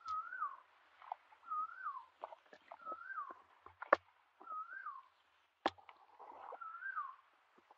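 A bird's short whistled call, rising then falling, repeated five times, about every one and a half seconds. Under it come soft splashes in shallow muddy water and two sharp clicks near the middle.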